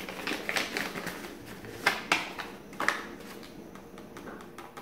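Paper seed packet crinkling and crackling as it is opened and tipped into a palm, in irregular crackles, the sharpest about two to three seconds in.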